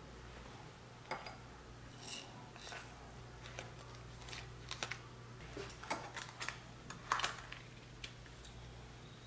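Light clicks, taps and rustles of a stainless-steel perforated spice ball being handled, lined with a paper filter bag and filled with dried spices such as star anise and bay leaf. A sharper metallic click stands out near the end as the ball is pressed shut. A faint steady low hum runs underneath.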